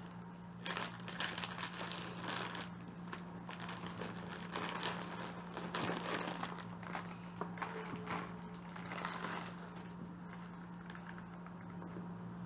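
Kit packaging crinkling and rustling in irregular bursts as it is handled, over a steady low hum.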